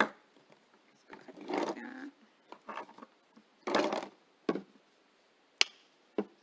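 Plastic acrylic paint bottles being picked up and moved about on a table: several short rustles and knocks, then a sharp snap a little over five seconds in as the flip-top cap of a paint bottle is opened.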